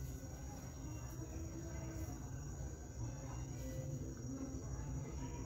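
Faint crickets, a thin steady high trill, over a low steady hum.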